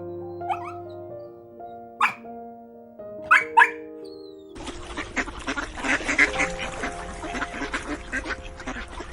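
Soft piano music with short animal calls over it, a few single calls at first; about halfway in, a dense chorus of many rapid calls starts and continues.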